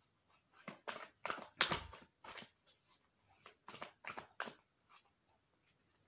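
A deck of tarot-style divination cards being shuffled by hand, overhand, with packets of cards slid and slapped from one hand to the other in a quick, irregular run of soft rustling snaps. The strokes come thickest in the first half and thin out near the end.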